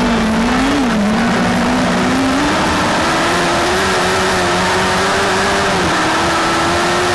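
Autocross race car's engine running hard under load, its pitch dipping and climbing with the throttle, over a steady noisy rush. The note drops briefly about a second in and again near the end before rising once more.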